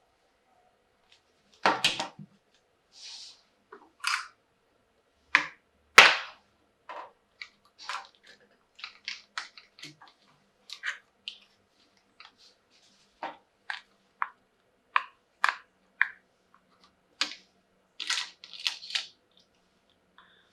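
Plastic toy doctor-kit pieces being handled: an irregular run of separate sharp clicks and taps, with louder knocks about two and six seconds in.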